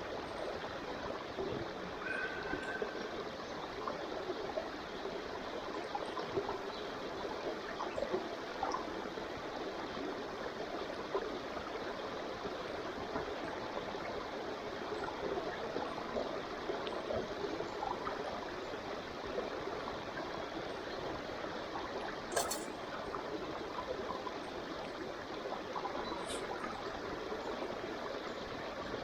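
Wood campfire burning with a steady crackling hiss, and two sharp snaps near the end.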